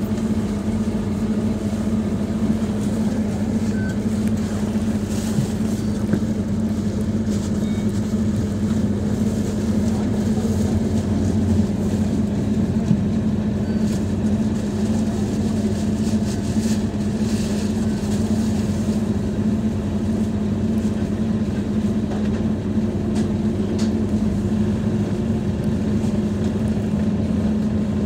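Scania DC9-16-230 five-cylinder diesel engine of a Scania K230UB bus running at a steady speed, heard from inside the bus as a constant low drone.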